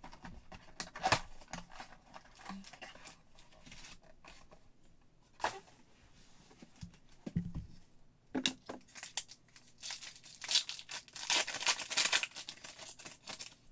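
Hands handling and opening a box of football trading cards, with scattered rustles and a few taps as the packs are set down on the table, then a foil card pack torn open with a burst of crinkling near the end.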